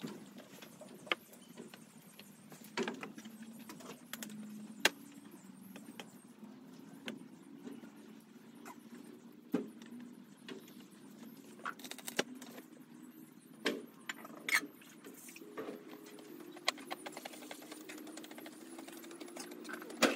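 Scattered light clicks and taps of garlic cloves being peeled and a knife chopping them on a cutting board, over a steady low engine hum that rises slightly in pitch near the end.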